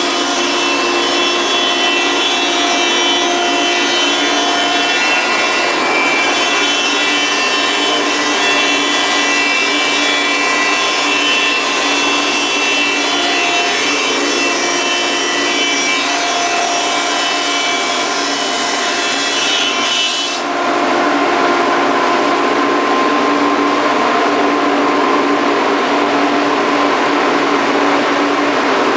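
Grizzly G0544 thickness planer cutting a 7-inch-wide red oak board, a loud steady cutting noise with a high whine from the cutterhead. About two-thirds of the way through, the cutting sound stops suddenly and the planer runs on without load.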